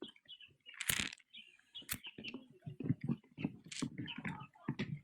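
Fishing reel clicking and rattling with knocks of rod handling while a large hooked fish is being fought. The clicks come irregularly, with one louder knock about a second in.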